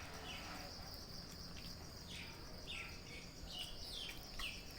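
Steady high insect drone with a bird's short falling chirps, about seven of them, scattered through it.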